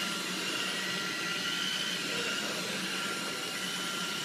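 Steady background hum and hiss with a thin, high, steady whine, even throughout with no sudden sounds.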